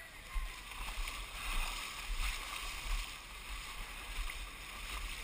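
Muddy water splashing and sloshing around a person's legs as they wade through a mud pit, the splashes coming in a steady stride about every half second, over a low rumble.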